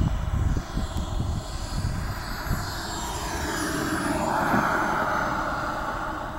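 Radio-controlled scale Grumman F9F Cougar model jet passing low along the runway as it lands, its turbine whine swelling about three seconds in and sliding down in pitch as it goes by. Gusts of wind rumble on the microphone in the first few seconds.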